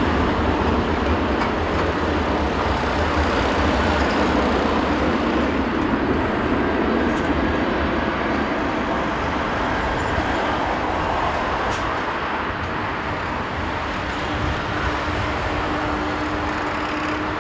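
Airbus A321-231's twin IAE V2500 turbofan engines at take-off thrust during the take-off roll: a steady loud roar that slowly fades as the jet moves away down the runway.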